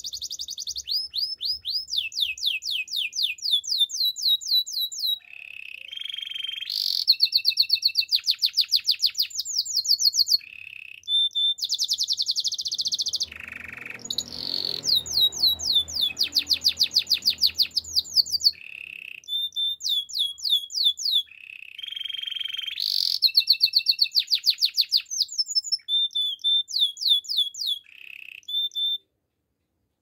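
Canary singing a long song of fast trills: rapid runs of repeated notes that sweep downward, in phrases of changing speed and pitch separated by short pauses. The song stops shortly before the end.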